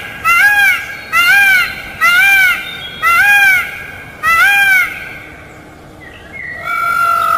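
Peacock calling: five short, loud calls, each rising and falling in pitch, about one a second, then after a pause of about two seconds a longer, level call near the end.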